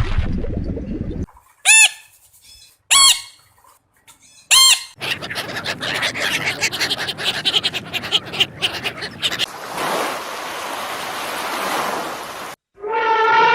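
Three short bird calls about a second and a half apart, each a quick rising-and-falling note. Then come several seconds of crackling, rustling noise and a steady hiss, and a lower, falling animal call begins at the very end.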